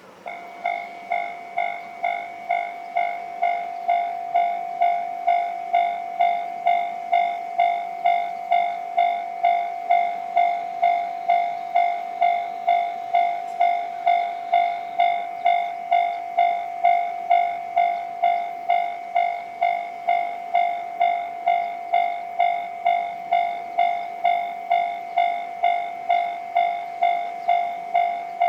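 Japanese railway level crossing warning bell ringing in a steady, even rhythm of about two and a half dings a second. It starts up and reaches full level within the first second.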